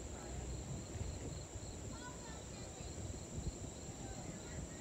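Faint, steady low rumble of a Cessna Citation 680 Sovereign twin-turbofan business jet passing high overhead, under a steady high drone of insects.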